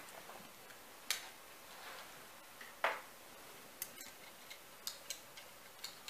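Faint scattered clicks and taps of two diecast toy tow trucks being picked up and handled in the fingers, with a clearer click about a second in and another near three seconds, then several light ticks.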